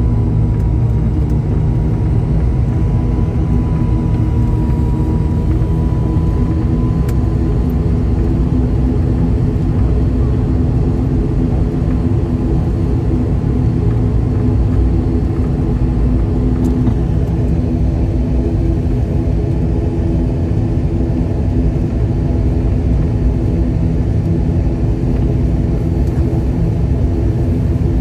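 ATR72-500 turboprop engines and propellers heard from inside the cabin during taxi: a steady, loud low drone with several held tones. A faint high whistle sits over it for the first several seconds and then fades out.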